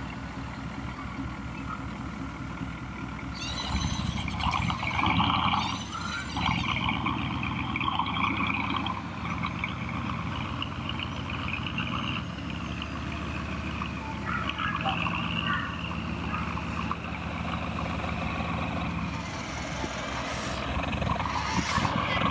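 Radio-controlled hydraulic track loader, a scale CAT 973D, working a rock pile: a steady engine drone with a higher whine that comes and goes. Stones clatter about four to six seconds in.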